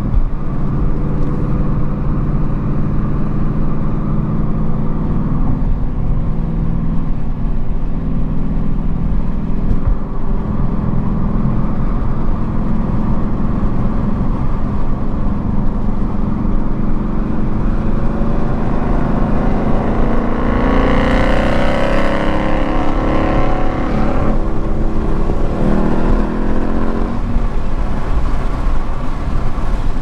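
2018 Ford Mustang GT's 5.0 L V8 through a Roush Jackhammer aftermarket exhaust, heard from inside the cabin while driving. It drones steadily at cruise, then about two-thirds of the way through it is opened up, rising in pitch and getting louder for a few seconds before easing back.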